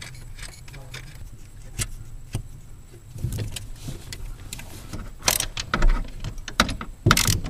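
Irregular metallic clicks and clinks of a hand wrench and nuts being run onto the brake booster's mounting studs under the dashboard and tightened, with a louder clatter about five seconds in and again near the end, over a low steady hum.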